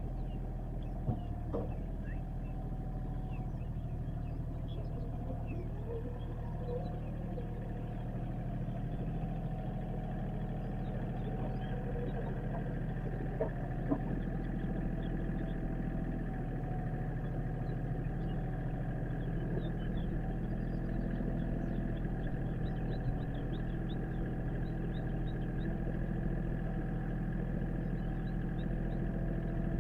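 An engine idling steadily, with a couple of faint knocks and some faint high chirps over it.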